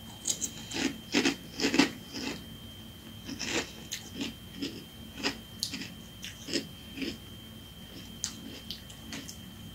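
A person chewing a mouthful of Dulce de Leche Toast Crunch cereal in milk: irregular soft crunches, about two or three a second, close to the microphone.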